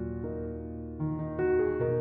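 Soft background piano music: held chords, with a new chord coming in about a second in.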